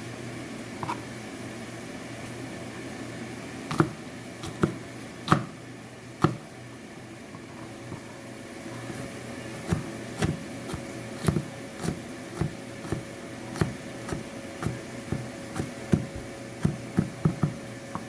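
Knife chopping on a cutting board: a few scattered knocks, then steady strokes about two a second from about ten seconds in, over a steady low hum.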